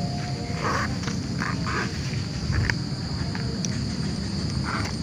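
Steady high-pitched drone of night insects, with several short bouts of rustling as fishing gear is packed up, over a low rumble.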